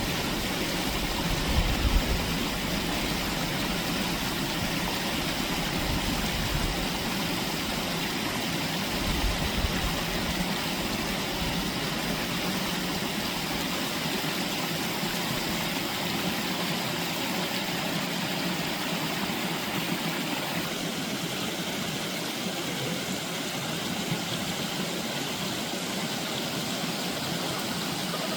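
Steady vehicle engine and road noise, with low rumbles swelling about two seconds in and again near ten seconds.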